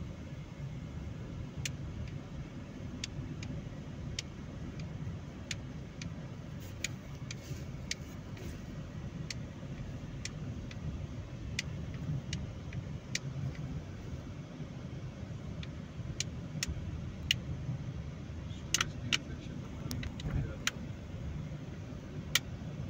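A car driving, heard from inside: a steady low road-and-engine rumble with scattered sharp clicks.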